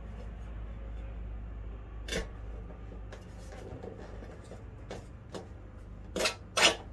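A motorcycle tyre's rubber bead being worked off a metal wheel rim by hand, dry with no soap on it: scattered knocks and scrapes of rubber and metal, with two louder knocks near the end.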